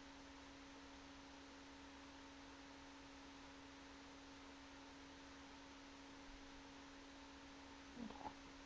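Near silence: room tone with a steady low electrical hum and faint hiss.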